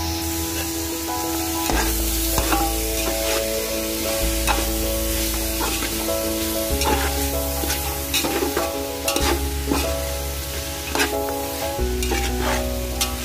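Steel ladle scraping and knocking against a steel pot as chopped vegetables are stirred and fried in masala paste, with sizzling. Background music with sustained notes plays underneath, its chord changing every couple of seconds.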